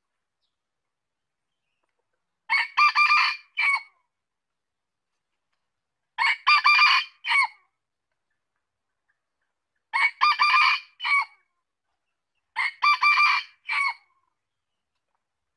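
Male red junglefowl crowing four times, a crow every three to four seconds. Each crow is a quick run of clipped notes ending in a short separate final note.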